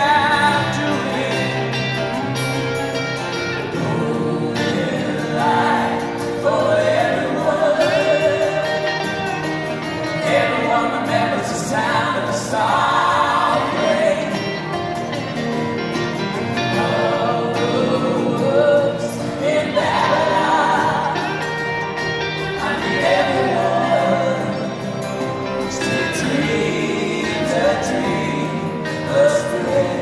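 Live band music: acoustic guitars playing under voices singing together, a woman and a man sharing the vocal.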